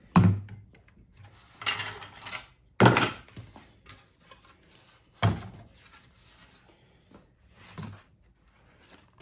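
A series of about five thunks and knocks from objects being handled and set down. The loudest comes about three seconds in, and there is a short scraping rustle just before it.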